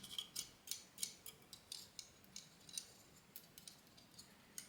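Faint, irregular light clicks and taps, several a second, from Pure Wings 2 case fans being handled.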